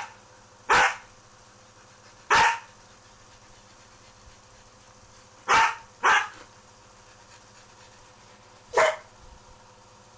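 A Siberian Husky and a mixed-breed dog trading short single barks, five in all, spaced one to three seconds apart, with two close together about six seconds in.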